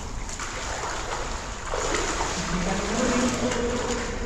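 Water splashing and sloshing, a steady rough noise, with a person's voice coming in just over halfway through.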